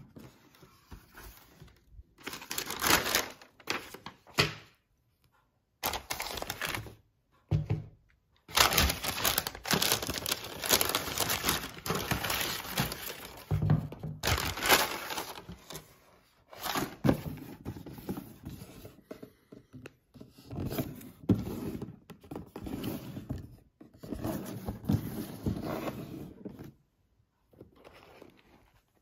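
A cardboard shoebox being handled and opened, then tissue paper rustling and crinkling in bursts with short pauses, with occasional thunks of the box and lid.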